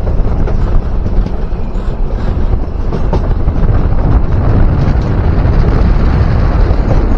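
Steady rush of wind buffeting the microphone at the window of a moving passenger train, with the train's running noise underneath.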